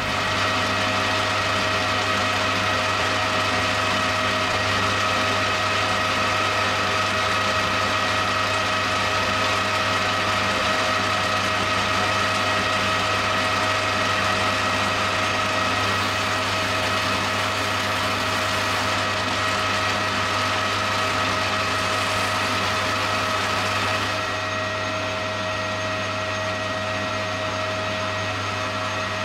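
Metal lathe running steadily while a turning tool takes a light skim cut off a small engine part held in a collet chuck. It makes an even hum with a few held tones, and drops a little in level about 24 seconds in.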